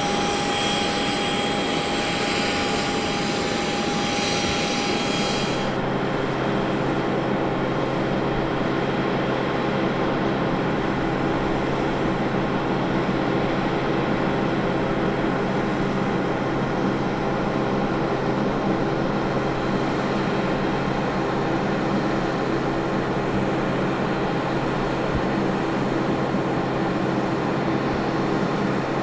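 Steady machinery hum on an airport apron around a parked Boeing 737-800. A high whine over it stops abruptly about six seconds in, leaving a lower steady hum.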